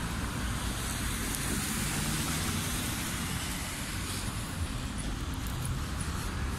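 Steady street traffic noise, a constant wash of passing cars.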